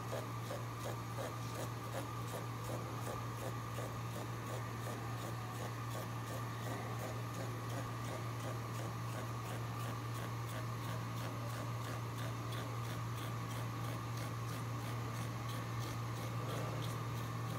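Knife blade tapping quickly and evenly on a plastic cutting board, several strokes a second, as it makes fine parallel cuts into a thin sheet of white vegetable, over a steady low hum.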